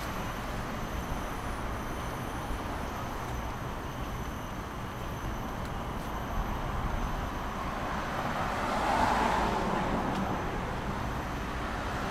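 Steady road traffic noise, swelling as a vehicle passes about two-thirds of the way through.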